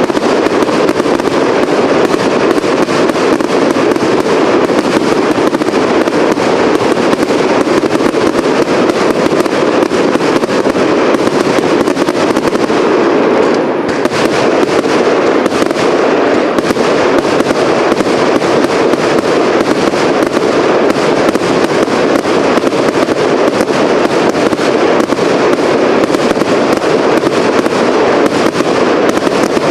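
A firework cake (battery) firing without a break: a dense, continuous stream of shots, bursts and crackle. It thins briefly about halfway through.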